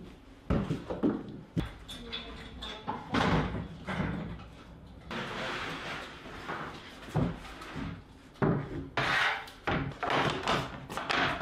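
Knocks, thumps and a sliding scrape as a full sheet of 3/4-inch plywood is lifted and slid onto a wooden assembly table. Near the end come clunks as a track saw and its aluminium rail are set down on the sheet.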